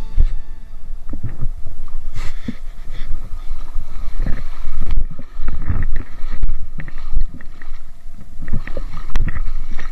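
Shallow water splashing and sloshing in irregular bursts, with low rumbling thumps of wind and handling on the microphone.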